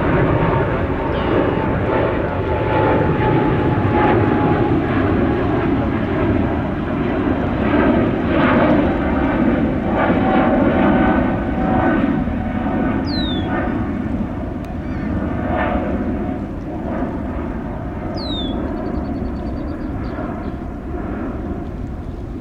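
Jet airliner engines: a loud steady rush with a faint whine, fading over the last several seconds. Two short falling chirps come about 13 and 18 seconds in.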